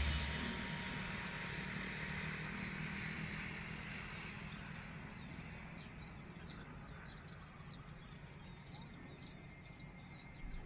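The tail of background music dying away in the first second or two, then faint open-air background: a steady low hum under an even hiss, with scattered faint high chirps.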